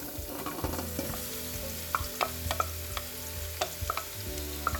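Sliced vegetables sizzling as they hit hot oil in a metal stockpot, stirred with a wooden spatula. Several sharp knocks ring against the pot between about two and five seconds in.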